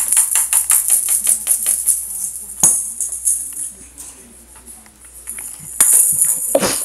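A rapid jingling rattle, about six shakes a second, which dies down in the middle with one sharp click and picks up again near the end.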